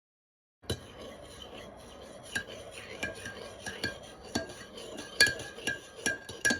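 A utensil clinking lightly and repeatedly against a dish or cup, about two clinks a second, each ringing briefly at the same pitch, as in stirring. It starts and cuts off abruptly.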